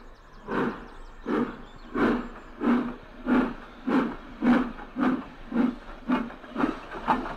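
Steam locomotive chuffing in a steady rhythm, about a dozen hissing exhaust beats, picking up pace slightly from roughly one every 0.7 s to one every half second.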